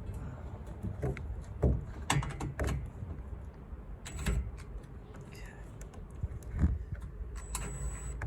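Scattered metallic clicks, knocks and clanks of a solar-panel mounting rail and foot being loosened and pulled into place, some with a short high ring, over a steady low rumble.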